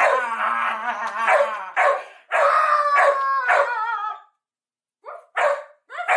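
Large dog howling in long, wavering calls for about four seconds. After a short pause it gives a few short barks near the end.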